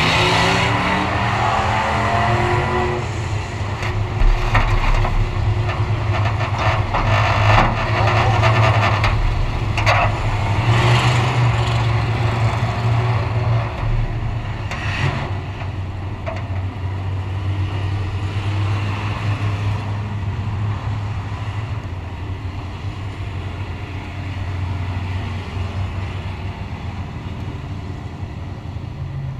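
A vehicle engine running at a steady idle, with louder engine and track noise over the first fifteen seconds or so that then eases off.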